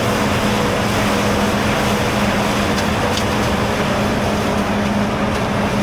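A large diesel harvest machine running steadily under load, with a constant low hum over a dense mechanical noise.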